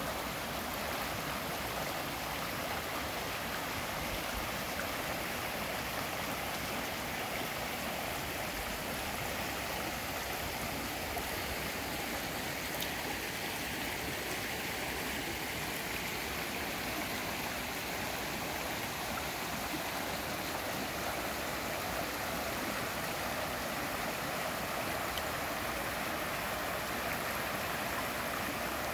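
Rocky stream swollen after several inches of rain, water rushing and babbling over boulders and riffles in a steady, unbroken flow.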